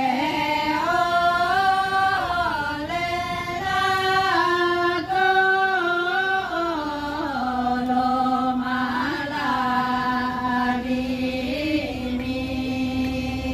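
Toraja pa'katia chant sung by the women dancers: a slow melody of long held notes that step up and down, settling onto a lower note about halfway through.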